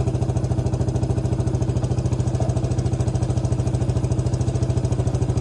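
Small off-road vehicle engine idling close by, with a steady, even, rapid putter.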